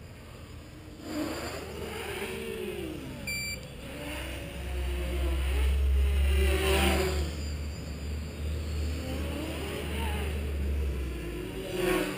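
Mini quadcopter's brushless motors and propellers whirring in flight, their pitch rising and falling over and over as the throttle changes. A heavy low rumble joins in from about four seconds in until near the end.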